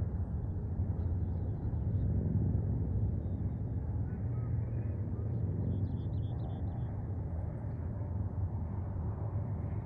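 Steady low rumble of wind buffeting the microphone outdoors, with a few faint high chirps in the middle.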